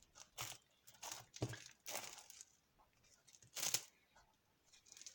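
Fluffy slime being squeezed and pulled apart in the hands, giving about five short sticky squishing sounds, the loudest about three and a half seconds in. The slime is slightly sticky on the hands.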